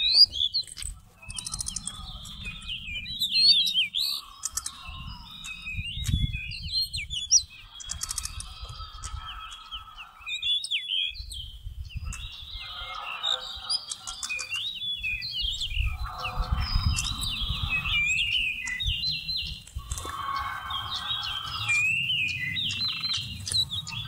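Magpie-robin singing: a near-continuous run of varied high whistled phrases, chirps and quick sliding notes.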